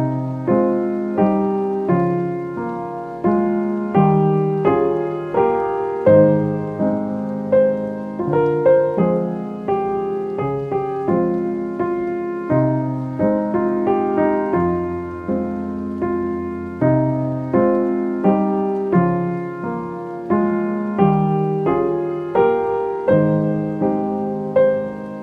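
Classical-style piano music: notes and chords struck and left to ring and fade, a new one about every second in a steady flowing pattern.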